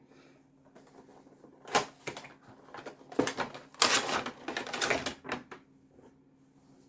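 Toy figure's box and packaging being opened by hand: scattered sharp clicks, then a busy run of crinkly rustling and clicking about four to five and a half seconds in.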